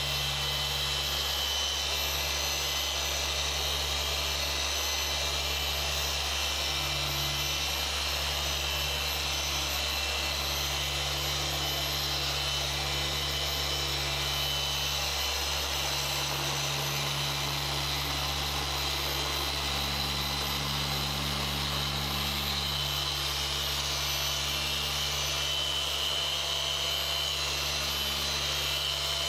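Rupes Bigfoot random-orbital polisher running steadily on car paint with a yellow foam pad and fine finishing polish, a constant hum with a hiss. This is the refining stage, where the polish's abrasives break down for maximum gloss.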